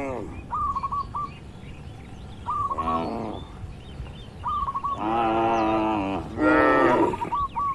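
Cattle mooing, three long calls of about a second each, while a bird repeats a short phrase of three or four quick notes about every two seconds.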